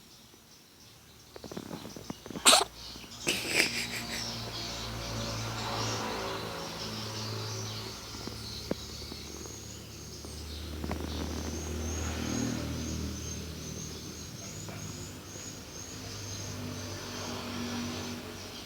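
Kitten purring in a steady low rumble, with a sharp sneeze about two and a half seconds in and another short burst a second later.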